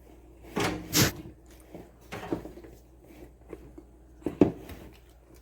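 Spatula folding the Oreo mixture into whipped cream in a bowl: a few separate scraping, squishing strokes, the loudest about a second in and near the end.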